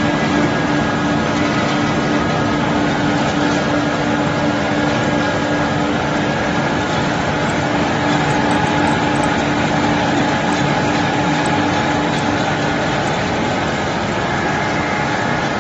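Animal feed pellet production machinery running steadily: a loud, even mechanical noise with a constant hum.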